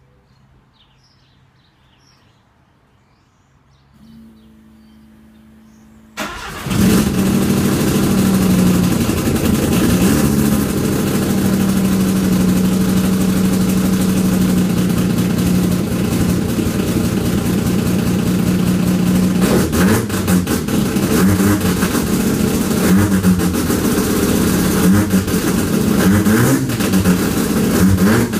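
Freshly rebuilt Mazda 13B peripheral-port rotary engine on its first start. A faint steady hum comes in about four seconds in, the engine fires about six seconds in and runs at a steady fast idle, and in the last third it is blipped with several short revs.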